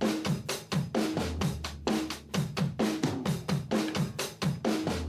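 Background music: a drum-kit groove with a fast, steady beat of kick, snare and hi-hat.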